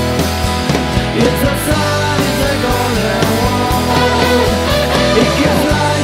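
Rock band playing: electric guitars, bass guitar and drums. From about two seconds in, a lead line bends and slides in pitch over the rhythm.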